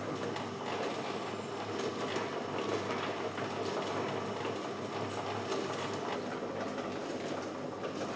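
Egg-packing machinery running steadily: a continuous mechanical clatter with light clicks over a low hum.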